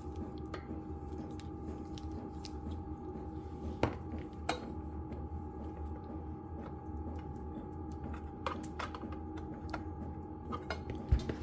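Light clicks and knocks of hard plastic parts of a drill bit sharpener being handled, with a stronger knock near the end, over the steady low drone of a diesel heater running.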